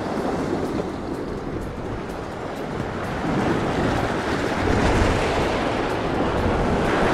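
Sea waves breaking and washing against a rocky shoreline, with wind buffeting the microphone; the surf grows louder about three seconds in.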